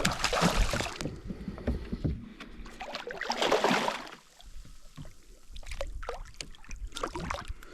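Water splashing and sloshing around a small fishing boat, two louder rushes near the start and about three seconds in, then light clicks and knocks on the boat.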